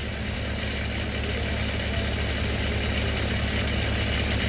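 Engine running steadily at a low speed, growing slowly a little louder.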